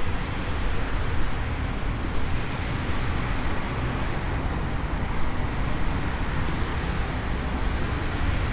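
Steady road traffic noise: a continuous low rumble with a hiss over it and no distinct events.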